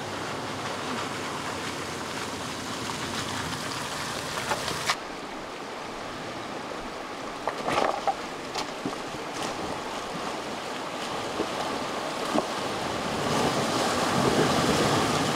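Steady rush of river water, with a few short knocks and clunks from about seven and a half seconds in.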